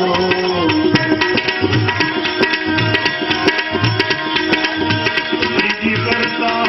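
Instrumental interlude of a Gujarati devotional bhajan: tabla keeps a steady rhythm with regular deep bass strokes, under held melodic tones. A gliding melody line fades out within the first second.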